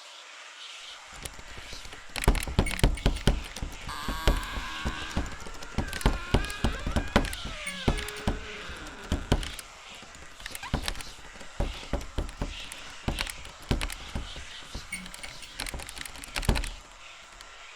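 Irregular series of loud knocks and thuds, with a wavering, sliding high-pitched tone from about four to eight seconds in.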